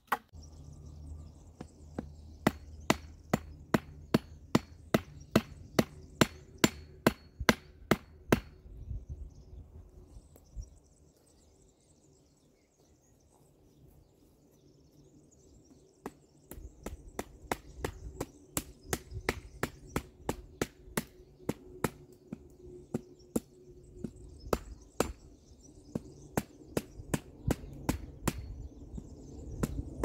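An axe chopping wood in quick repeated blows, about three a second, which stop for several seconds midway and then start again, some of them lighter.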